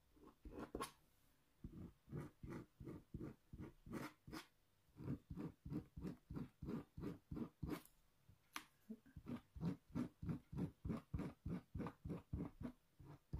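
Quiet rhythmic rubbing strokes, about three a second, in three runs with short pauses: a hand tool scraping back and forth over a diamond painting canvas to flatten creases and bubbles.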